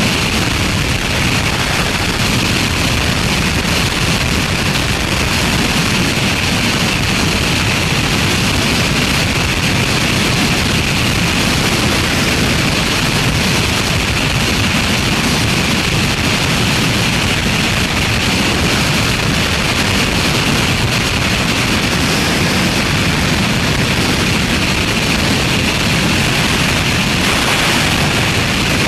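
Steady, loud rush of freefall wind over the camera's microphone.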